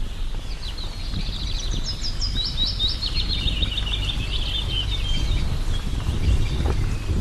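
A small songbird singing a long, fast, twittering song of quick chirps and trills that lasts about five seconds, over a steady low rumble.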